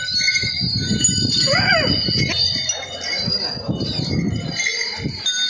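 Small bells jingling and ringing steadily, with rough low-pitched background sound beneath.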